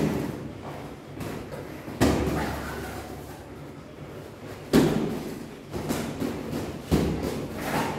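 Boxing gloves thudding and slapping as punches land in sparring: four loud hits roughly two seconds apart, with lighter knocks between.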